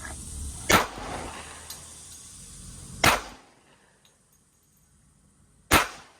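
Three pistol shots, spaced about two and a half seconds apart.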